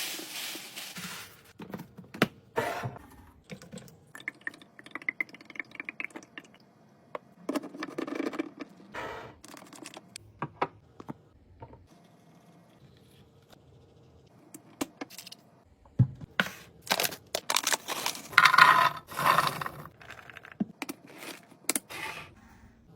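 Food items, containers and packaging being handled and set down while restocking a fridge: irregular clicks and taps of plastic and glass, with a few stretches of scraping and rustling.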